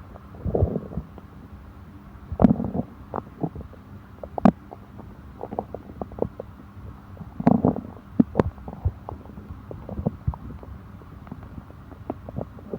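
A human stomach gurgling and rumbling after eating, from an upset stomach. Irregular bouts of bubbling gurgles mixed with sharp pops; the loudest come about two and a half and seven and a half seconds in.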